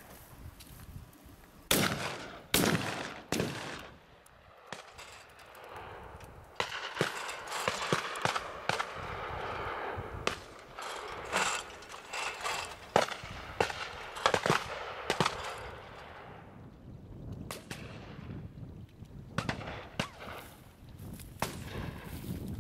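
Shotguns fired by several guns at driven clay targets. The shots come in an irregular run: a few early on, then many in quick succession, some overlapping, then a few more near the end.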